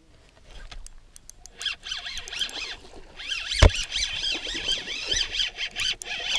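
Spinning reel being cranked to retrieve a lure: a quick run of ticks as the line goes out, then a squeaky, chirping whine from the reel's gears and spool, with one sharp knock a little over halfway through.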